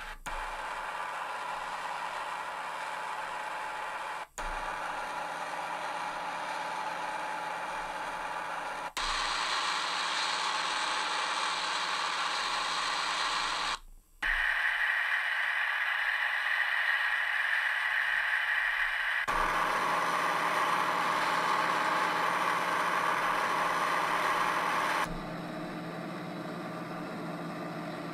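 Model locomotive sound from a DCC sound decoder, played in turn through a series of small model-railway speakers. It is a steady running sound whose tone switches abruptly about every five seconds as each speaker takes over, some bassier and some thinner and more mid-heavy.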